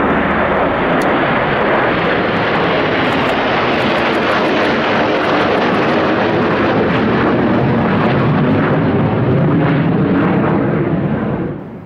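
Pair of Panavia Tornado GR4 jets, each with two RB199 turbofans, passing low overhead in close formation: loud, steady jet noise that grows deeper as they pass and fly away, then cuts off suddenly near the end.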